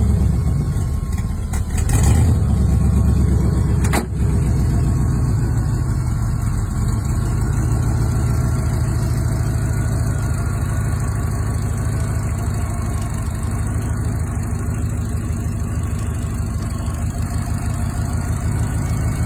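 Car engine running with a deep, even beat, louder for a couple of seconds near the start, then idling steadily. A single click sounds about four seconds in.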